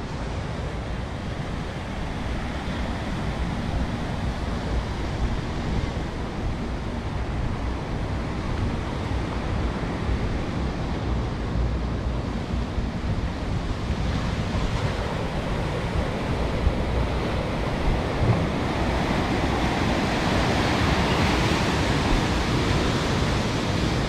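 Ocean surf washing in, with wind rumbling on the microphone. The surf gets louder and brighter over the second half, as breaking waves come close.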